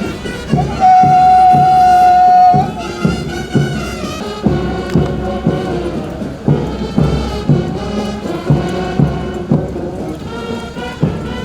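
Marching band playing a parade march, with a steady drum beat of about two strokes a second; one long held note sounds about a second in.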